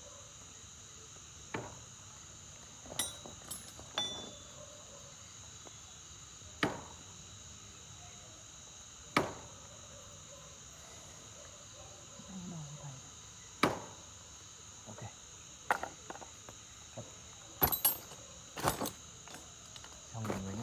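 Night insects, crickets, chirring in a steady high-pitched drone, with about ten separate sharp clicks and knocks scattered through it.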